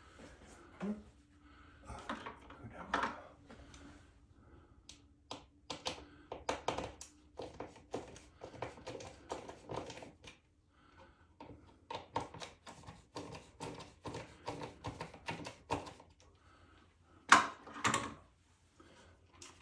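Hard plastic clicking and knocking from a ceiling smoke detector being handled and taken off its mounting base. The clicks come in quick runs, with a louder cluster of knocks near the end.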